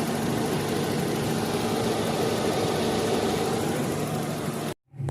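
Car engine idling steadily under a strong even hiss; the sound cuts off abruptly near the end.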